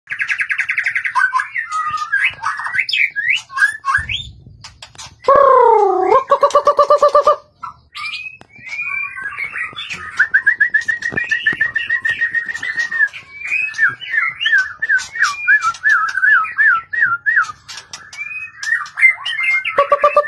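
White-rumped shama singing a varied song of quick whistled phrases, trills and sharp clicks. About five seconds in comes a much louder, lower whistle that slides down and then holds for about two seconds. Around ten seconds in there is a fast, even trill of repeated notes.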